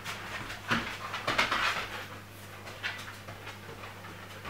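Two husky-type dogs play-fighting at close range: a string of short, breathy huffs and scuffles.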